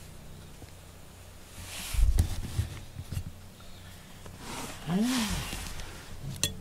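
Rustling and low thumps of the camera brushing against fur about two seconds in, then a single low, drawn-out cat call that rises and falls in pitch, about five seconds in.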